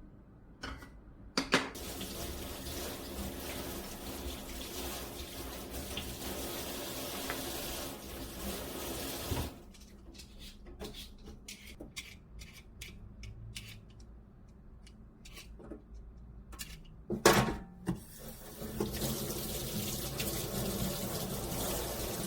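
Kitchen tap running into a sink, shut off about nine seconds in. A stretch of light clicks and knocks follows, with one loud knock, then the water runs again near the end.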